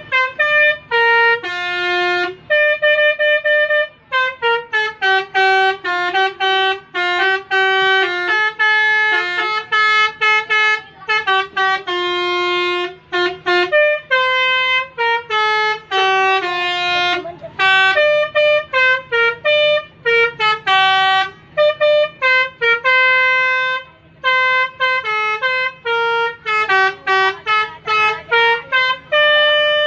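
Basuri telolet bus horn, a multi-tone air horn worked by hand note by note, playing a quick tune of short, stepping notes, with a few brief pauses.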